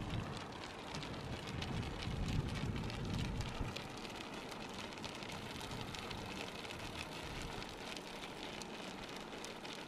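Herd of reindeer walking on an asphalt road: a dense, uneven patter of many small clicks from their hooves and legs. A low rumble underneath fades out about four seconds in.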